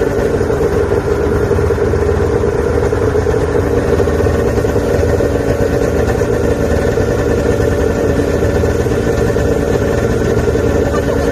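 Snowmobile engine running steadily under way, a constant drone that holds one pitch throughout.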